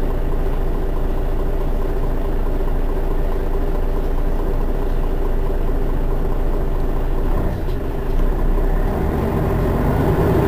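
Mercedes-Benz Citaro city bus engine idling steadily at a standstill. Its low note shifts, with a brief dip in level, about three-quarters of the way through.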